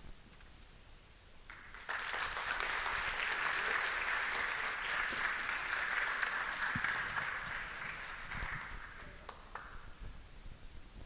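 Audience applauding for about seven seconds, starting suddenly about two seconds in and dying away near the end.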